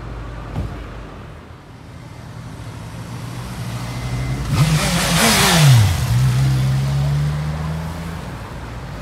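Sport motorcycle accelerating past close by over city traffic: its engine note climbs, drops sharply as it goes by about halfway through, then holds steady as it pulls away.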